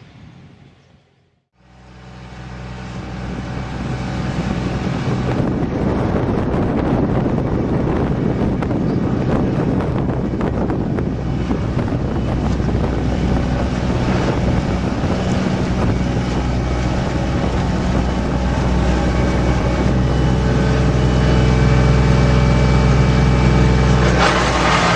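Diesel engine running steadily at close range, with a constant low hum. It comes in after a brief dropout about a second in and swells over the next couple of seconds.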